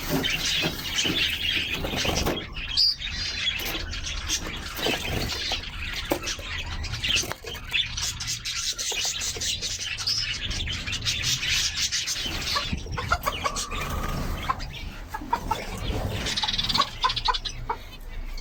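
A crowd of caged birds chirping continuously, with some clucking from chickens among them.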